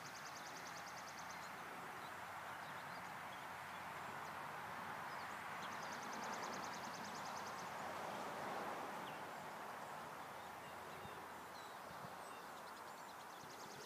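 Outdoor ambience: a steady rush that swells in the middle and fades again, like a vehicle passing on a nearby road. A high, rapid trill is heard twice, at the start and about six seconds in.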